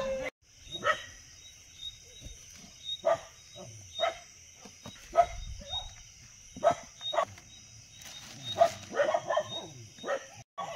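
Young puppies giving short, high yelps and yips, one at a time, a second or so apart, with a quick flurry of cries near the end.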